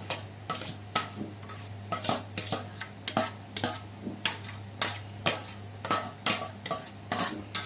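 A metal spoon knocking and scraping against a metal cooking pot while rice is spread out in it, about two to three strikes a second, over a steady low hum.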